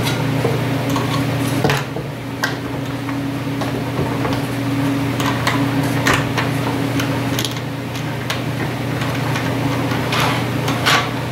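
Scattered light knocks and clicks as plywood fixture pieces are handled and slid along a rail and a T-bolt knob is fitted, over a steady low hum.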